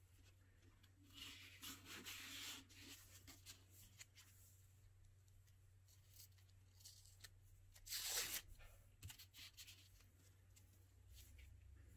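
Faint rustling and rubbing of a stiff paper heart template handled with gloved hands, with one louder, brief papery swish about eight seconds in, over a faint steady low hum.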